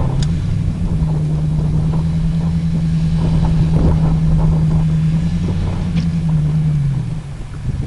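Land Rover Discovery's engine pulling under load up a muddy off-road climb, its note held steady, then falling away about seven seconds in as the throttle eases.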